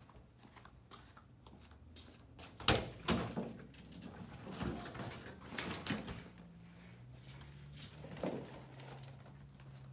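Ambulance side compartment door unlatched and swung open with two loud clacks about three seconds in, followed by scattered knocks and rustling as a rolled Reeves flexible stretcher is pulled out of the compartment. A faint low hum runs underneath.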